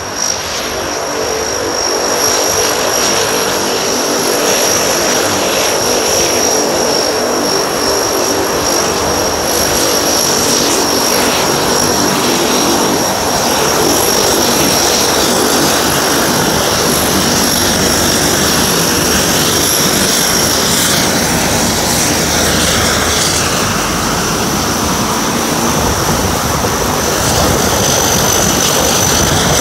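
Convair 580's Allison turboprop engines running as the airliner taxis, a loud steady turbine whine with a high tone over the thrum of the propellers.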